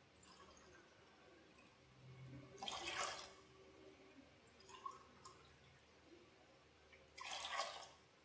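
Water poured from a steel tumbler into a steel pot of sugar, splashing in two short pours a few seconds apart, with fainter trickles between.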